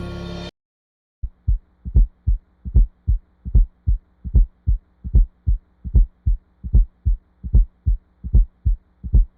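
Recorded human heart sounds beating at about 75 a minute. Each beat is a group of short low thuds, which looks like three sounds per cycle: a gallop rhythm with an extra heart sound beside the normal S1 and S2. A faint steady hum runs underneath.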